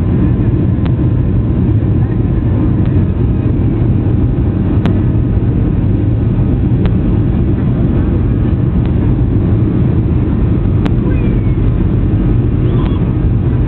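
Steady, loud rumble of jet engines and rushing air heard inside an airliner's passenger cabin during the takeoff and climb. A few faint clicks sound now and then.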